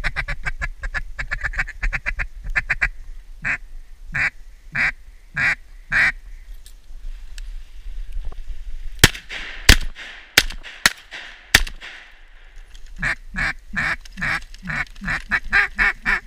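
Mallard duck call blown in quacks: a fast rolling run, then about six slower spaced quacks. Midway comes a quick string of about five loud shotgun shots, then another fast run of quacks near the end.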